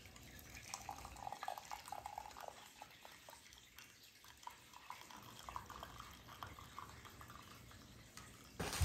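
Faint trickling and dripping of liquid as the nettle tea is made, clearest in the first few seconds and thinning to scattered drips.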